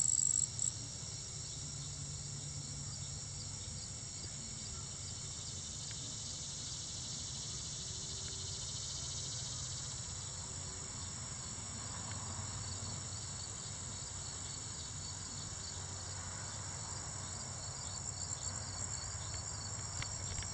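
Steady chorus of crickets and other insects, an unbroken high-pitched chirring. A louder, higher trill from one insect cuts off about half a second in.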